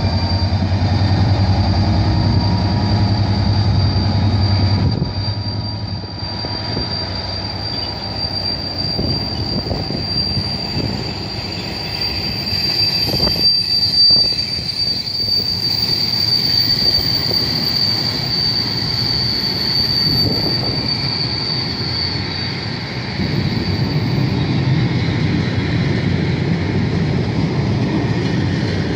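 GB Railfreight Class 66 diesel locomotive passing, its two-stroke V12 engine giving a low steady drone for about the first five seconds. Then its freight wagons roll by, with a long high-pitched squeal from the wheels that fades out about three-quarters of the way through.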